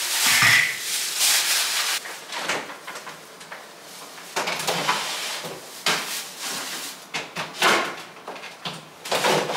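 Thin plastic grocery bags crinkling and rustling as groceries are unpacked, with scattered knocks and clatter as items are set down in a fruit basket and on refrigerator shelves.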